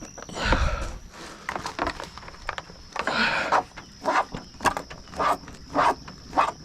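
Irregular clicks, knocks and scrapes of plastic grille parts being handled and pressed into place on a pickup's front end, with a few short rustling scrapes among them.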